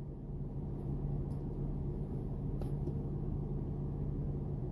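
2003 Acura TL Type S's 3.2-litre V6 idling, heard from inside the cabin as a steady low hum, with a couple of faint clicks.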